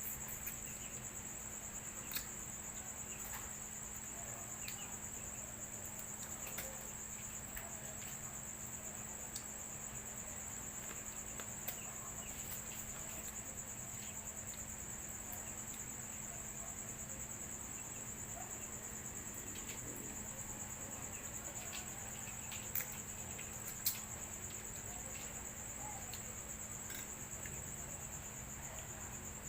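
Crickets trilling in one steady high, unbroken chirr, with a low steady hum beneath and a few sharp clicks now and then.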